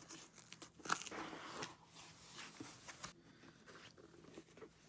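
Cardboard shipping box being torn open by hand: a run of ripping and crinkling sounds, the strongest about a second in, easing after about three seconds into fainter rustling and handling.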